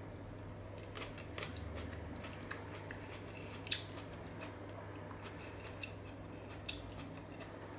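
Scattered small clicks and crackles of a salad being picked through by hand on a glass plate, with two sharper clicks, one a little before halfway and one near the end.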